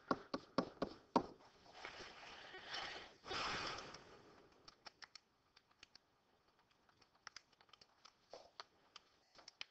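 Faint scratching of a stylus on a tablet screen, two short strokes in the first few seconds, then sparse light clicks of calculator keys being pressed.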